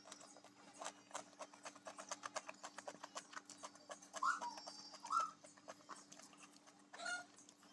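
Close-miked eating: rapid wet clicks of chewing and lip-smacking, with two short, loud, higher-pitched sounds about four and five seconds in.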